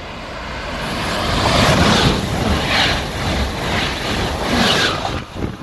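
Amtrak Acela Express electric high-speed trainset passing close at speed. A rush of air and wheel noise builds to a peak about two seconds in, then swells again several times as the cars go by.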